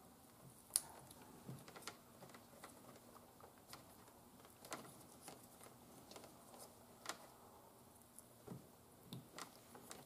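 Faint, scattered clicks and taps of plastic as an H11 headlight bulb connector and its wiring are handled and worked onto the bulb, with one sharper click about a second in.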